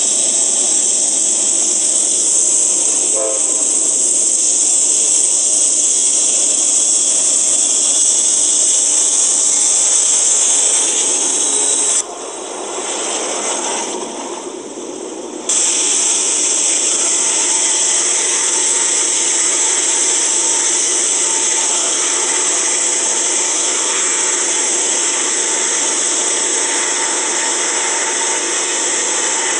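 Diesel-hauled double-stack intermodal freight train passing close below: locomotive engines running and container cars rolling over the rails, heard as a loud steady hiss. The sound dips for a few seconds about twelve seconds in, as the locomotive goes underneath, then comes back.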